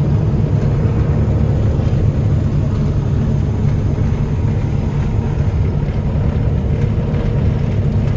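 Combine harvester running steadily, a continuous low machinery drone with a faint steady hum above it.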